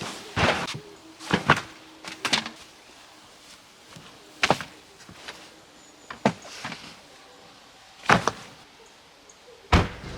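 A series of irregular knocks and thumps, about eight in all, some coming in quick pairs, like gear being handled or a door being shut.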